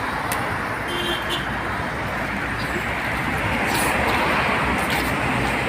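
Steady street traffic noise from passing cars: a constant wash of sound that swells slightly a few seconds in.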